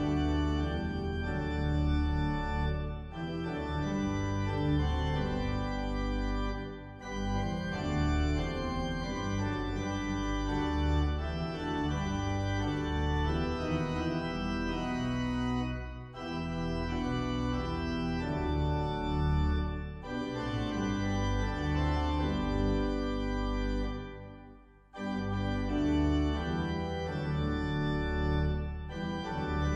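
Organ playing held chords in slow phrases, with short breaks between the phrases.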